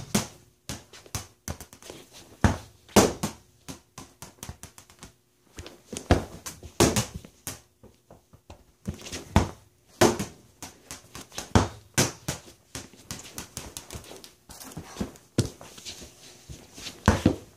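A ball being kicked about and bouncing on a hardwood floor, with footsteps: a string of irregular knocks and thuds, several a second at times, with short pauses between.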